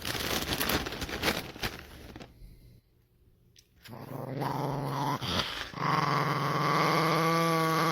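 Dog growling: a long, drawn-out, low growl that builds after a brief pause and wavers near the end. It is preceded by a few seconds of scratchy rustling.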